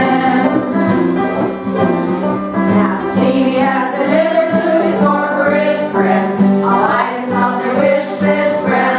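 A group of women singing together to two acoustic guitars and a banjo, in a country-bluegrass style.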